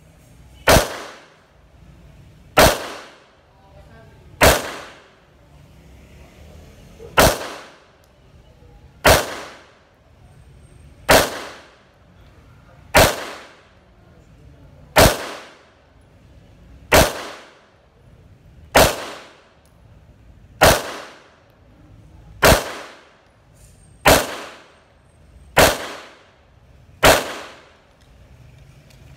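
CZ P-10 F pistol firing deliberate single shots, about one every two seconds, fifteen in all. Each shot is a sharp crack with a brief echo.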